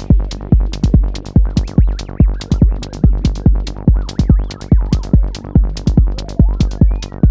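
Live psytrance from Korg hardware synths and a drum machine: a four-on-the-floor kick about twice a second, a synth bass between the kicks, and high hi-hat ticks. Over it, a wavering synth line glides up and down in pitch as the microKORG's knobs are turned.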